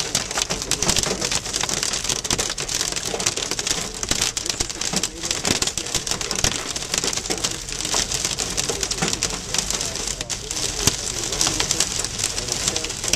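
Heavy rain beating on a moving car's windshield and roof, heard from inside the cabin: a dense, steady hiss full of sharp drop hits.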